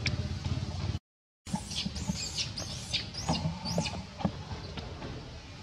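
Baby long-tailed macaque giving a quick run of about six high squeaks, each rising and falling in pitch, the calls of a hungry infant at its mother. A low steady rumble comes before them, broken by a moment of dead silence.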